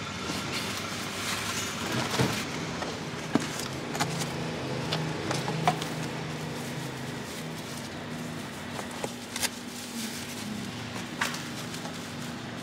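Steady hum of street traffic, with a vehicle engine running more strongly through the middle. Over it come several sharp rustles and knocks from a cardboard box and fruit in mesh sleeves being handled.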